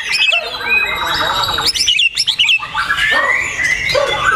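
A songbird singing: a fast, varied stream of chirps, whistles and trills, with a brief pause about two seconds in.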